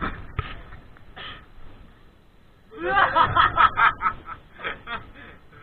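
A man laughing: a few short chuckles, then a quick run of laughing bursts about three seconds in.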